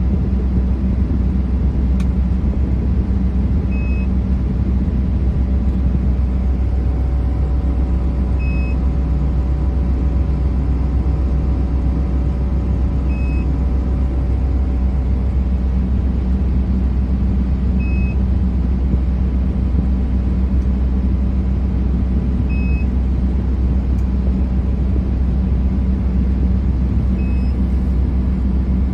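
Heavy drill rig's engine running steadily, heard from inside the operator's cab, with a short high beep repeating about every five seconds.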